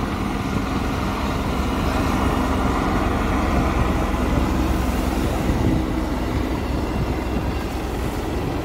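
A pair of military helicopters flying a display together, their rotors and turbine engines making a steady noise with a low hum.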